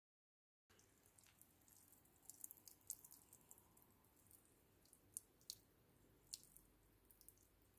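Near silence: faint background hiss with a few soft, sharp ticks scattered through it, starting just under a second in.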